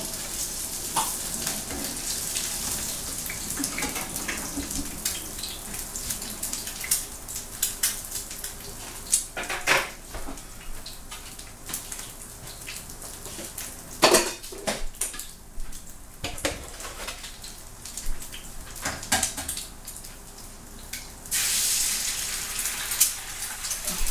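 Kitchen utensils and dishes clattering in scattered clicks and knocks, with the loudest knocks about ten and fourteen seconds in, over a steady hiss of food frying in a cast iron skillet. A louder hiss starts abruptly near the end.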